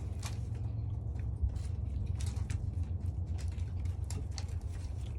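Pigeons moving about: scattered light taps and clicks at an irregular pace, over a steady low rumble.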